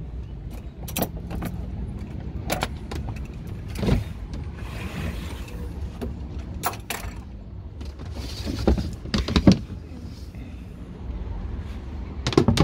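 Clicks and knocks of a brass padlock being unlocked and taken off a sailboat's companionway hatch, then scraping as the hatch is slid open, with more knocks near the end. A steady low rumble runs underneath.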